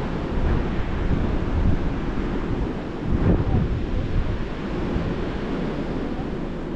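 Surf breaking and washing on a sandy beach, with wind buffeting the microphone in a steady low rumble.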